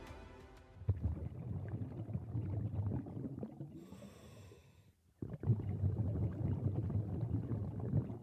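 Scuba diver breathing through a regulator underwater: a long low rumble of exhaled bubbles, a short high hiss of inhalation about four seconds in, then another long bubbling exhale.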